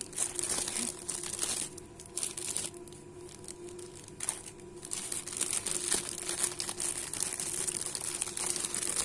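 Clear plastic bags crinkling in irregular bursts as hands handle and pack them. There is a quieter spell a few seconds in, then the crinkling picks up again.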